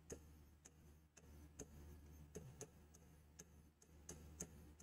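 Faint, irregular clicks of a stylus tip tapping a digital writing board while words are written, about two a second, over a low steady hum.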